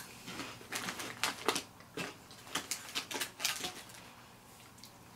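Crunching of thin, crisp pretzel sticks being bitten and chewed up close: a quick run of sharp cracks for about the first four seconds, then dying away.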